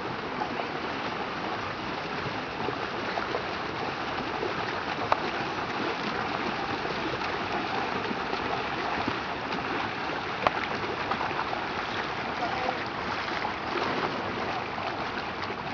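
Steady rush and splash of water from sprint kayak paddles striking the river at racing pace, with a couple of sharp clicks.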